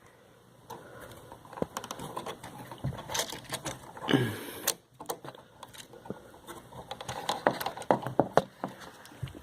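Irregular small clicks, taps and scrapes of a solid wire being worked onto the screw terminal of an electrical outlet by hand, mixed with handling noise from a handheld camera.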